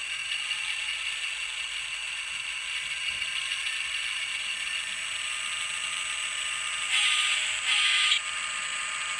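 An N scale model diesel locomotive's sound decoder plays diesel engine sound through its tiny speaker. The sound is steady and thin, with no bass. Near the end come two short, louder blasts.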